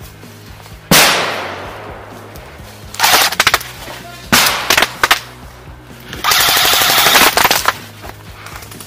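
Airsoft electric rifles firing: a sudden loud crack that dies away slowly about a second in, short bursts of rapid shots around three to five seconds in, and a longer full-auto burst of about a second and a half near the end.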